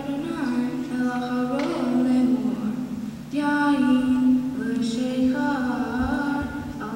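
A girl's voice chanting the Hebrew Torah reading solo and unaccompanied, using the traditional cantillation melody: long sung phrases that hold notes and slide between them, with a short pause for breath about three seconds in.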